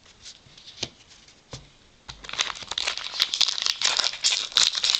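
Foil wrapper of a Topps baseball-card jumbo pack crinkling as it is handled and torn open. It starts with a few light taps, and a dense crackle sets in about two seconds in.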